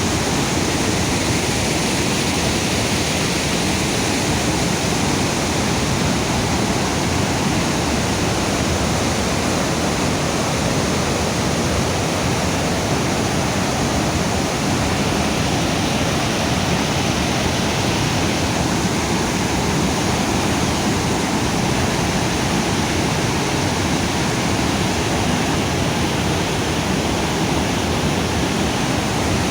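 Floodwater rushing, a loud steady noise that does not let up.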